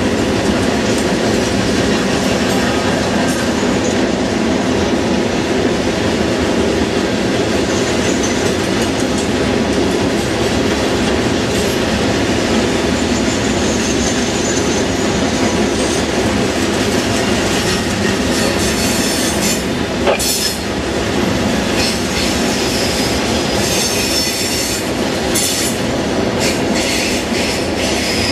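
Freight train cars rolling past on steel rails with a steady rumble. Wheels squeal now and then, and from about two-thirds of the way in there is a run of sharp clacks and squeals over the track.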